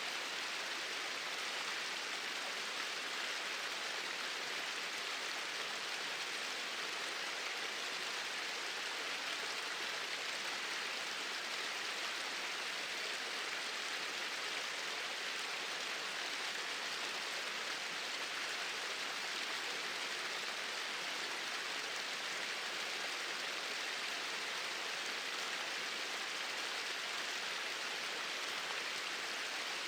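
Water from two small waterfalls pouring steadily into a stream, an even rushing splash with little low rumble.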